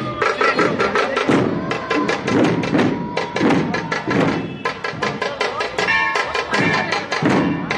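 A troupe of large Maharashtrian dhol barrel drums beaten with sticks in a fast, driving rhythm: deep booms under a dense run of sharp stick strikes.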